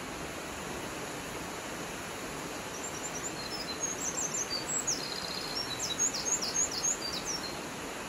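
Steady rush of a waterfall plunging into a pool. A small bird sings a quick series of high, chirping notes from about three seconds in until near the end.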